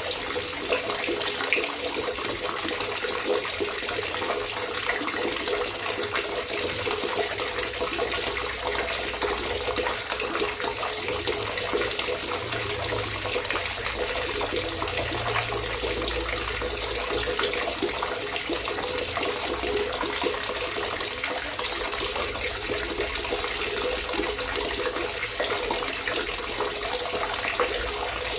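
Water trickling and gurgling steadily, a continuous flow full of small splashes and drips.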